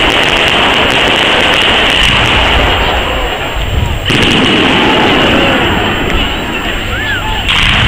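Aerial fireworks shells bursting in quick succession, a dense continuous wash of bangs and crackle, with fresh loud bursts about four seconds in and again near the end.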